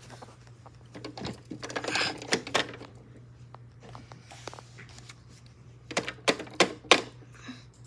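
Clicks and knocks of a plastic toy washing machine being handled and loaded. There is a run of light clicks about a second in and a few louder knocks around six to seven seconds in.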